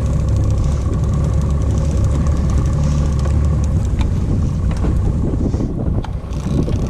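Boat engine running steadily at trolling speed, a low rumble with a steady whine above it, and a few sharp clicks near the middle.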